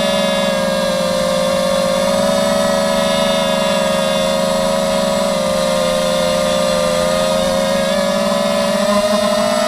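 Mini FPV quadcopter's brushless motors and propellers whining steadily in flight, the pitch wavering slightly with the throttle.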